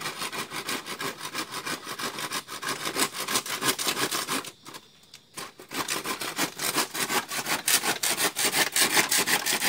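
Hand saw cutting through a bamboo pole with quick, even back-and-forth strokes. It stops for about a second midway, then carries on.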